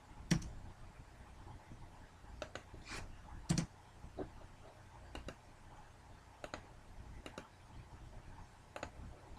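Irregular clicks of a computer keyboard and mouse, a dozen or so sharp clicks spread unevenly, the loudest near the start and about three and a half seconds in.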